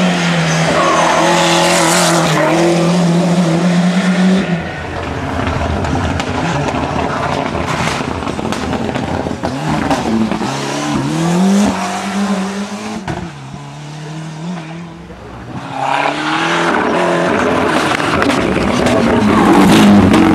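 Ford Sierra Cosworth Group A rally car's turbocharged 2.0-litre YB four-cylinder engine at racing revs. It holds a high pitch for the first few seconds, then falls and rises repeatedly through gear changes. It fades briefly about two-thirds through and comes back loud as the car nears again.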